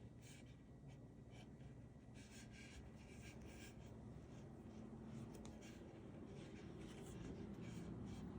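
Faint, irregular rubbing and scraping of macrame cord being wound around a wooden 4x4 post, over a low hum that grows louder near the end.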